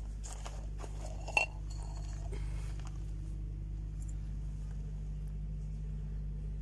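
Eggs clinking on a ceramic plate: one sharp clink with a brief ring about a second and a half in, among a few faint handling rustles, over a steady low hum.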